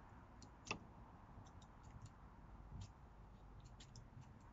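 Scissors snipping through ultra-fine insect mesh netting: faint, scattered clicks, the loudest about three-quarters of a second in.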